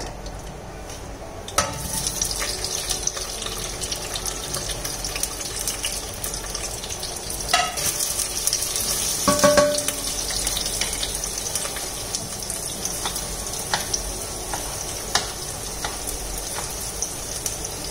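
Sliced onions and green chillies sizzling as they fry in hot oil in a pressure cooker. The steady hiss starts about a second and a half in, with scattered light clicks over it.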